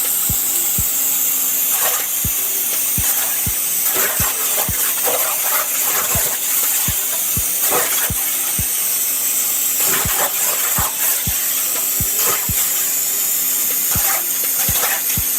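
Background music with a steady low thumping beat over a constant hiss.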